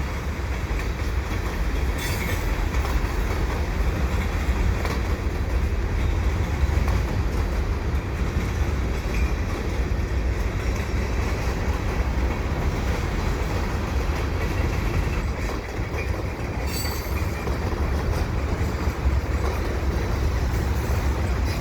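Freight train cars rolling past: a steady rumble of steel wheels on rail, with some clickety-clack over the rail joints.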